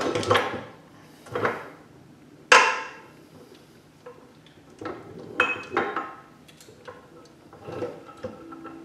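Metal clanks and knocks of tools against the steel parts of an NV4500 manual transmission during work to free its main shaft, about half a dozen separate strikes, the loudest a sharp ringing one about two and a half seconds in.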